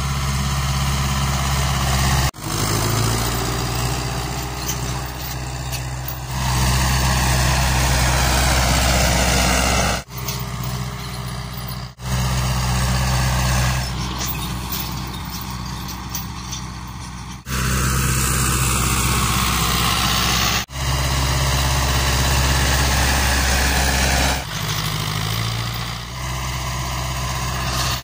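Ursus farm tractor diesel engines running steadily under load at high revs while pulling cultivation implements through the soil. The sound breaks off abruptly several times, and the engine note shifts a little after each break.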